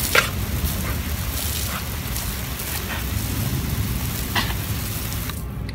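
Garden hose spraying a jet of water, a steady hiss and spatter, with a few short sharp sounds as a dog snaps at the stream.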